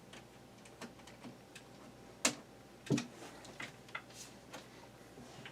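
Scattered light clicks and ticks from a screwdriver working a screw out of a box fan's rear cover, with two sharper knocks about two and three seconds in.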